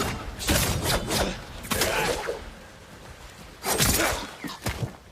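Katana sword-fight sound effects: a quick series of sharp swishes and clashes in short bursts, pausing briefly in the middle before two or three more near the end.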